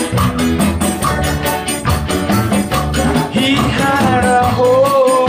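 Band playing an upbeat song with a steady percussion beat and bass; a singing voice comes in about three seconds in.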